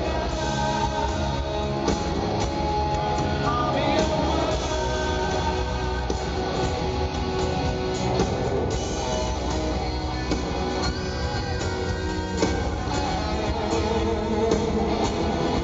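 Live rock band playing a song, with guitars and singing.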